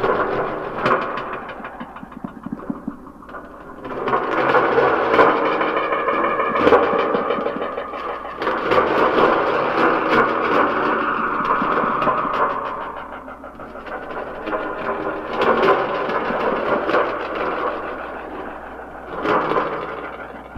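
Improvised noise sound art: objects rubbed and rattled on a metal tray, making a dense, gritty texture full of small clicks that swells and fades in waves.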